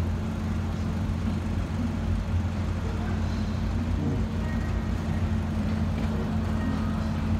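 Steady low hum of a motor vehicle's engine and city street traffic, with a constant drone and no sudden sounds.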